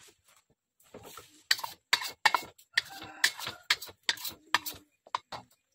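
Clanks and rattles of an empty steel wok being handled on a gas stove: a quick, irregular run of sharp metal knocks, some ringing briefly.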